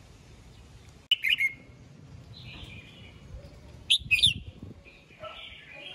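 Red-whiskered bulbul singing short, loud, clear phrases, about a second in and again around four seconds, with softer warbled notes between them.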